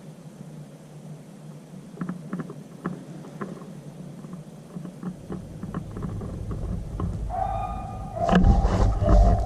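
Beagles baying on a rabbit's trail, held calls that start near the end over crackling brush. A sharp crack comes near the end, with a heavy low rumble of movement or wind on the microphone.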